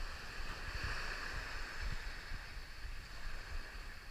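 Wind buffeting the microphone in irregular low rumbles, over a steady outdoor hiss.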